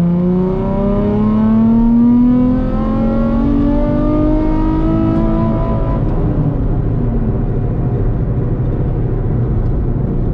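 Nissan 350Z's 3.5-litre V6, fitted with test pipes and no muffler, pulling hard under full throttle, its note climbing steadily in pitch. The pitch dips briefly about three seconds in, climbs again, then eases off about six seconds in to a steady low drone with road noise.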